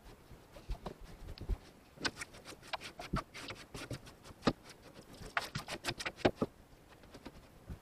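Scattered light clicks, taps and rustling, irregular and bunched into two busier spells, as of someone moving about and handling things around a truck cab.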